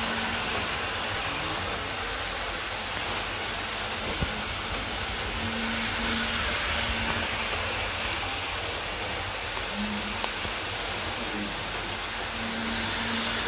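Hornby OO gauge model Class 47 locomotive and coaches running on the track, a steady whirring hiss of motor and wheels that swells each time the train passes close, about 6 seconds in and again near the end, with a few faint clicks.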